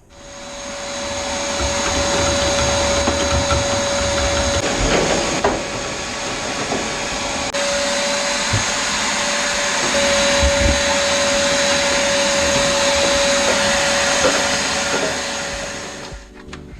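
An electric fan motor, like a vacuum cleaner, runs steadily with a constant whine. It starts up at the beginning and winds down near the end, with a few knocks along the way.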